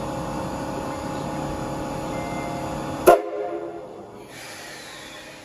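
Standing C61 20 steam locomotive hissing and rumbling steadily as it lets off steam. About three seconds in, a brief loud blast sounds and the rumble cuts off abruptly, leaving a quieter hiss.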